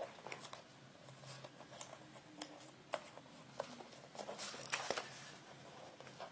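Faint, scattered rustles and small taps of self-adhesive hinging tape and card backing board being handled as the tape is threaded through a slot cut in the board, with a denser patch of rustling about four to five seconds in.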